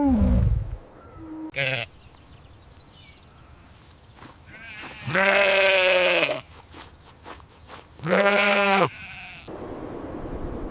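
Two bleats from livestock, about five and eight seconds in, each about a second long with a quavering, wavering pitch. A falling call dies away right at the start, and a short call comes just before the two-second mark.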